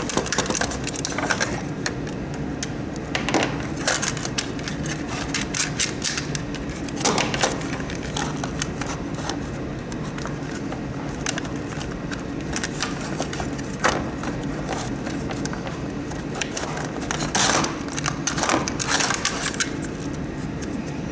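Scattered clicks and knocks of hard plastic humidifier parts being handled and taken apart by hand, over a steady low hum.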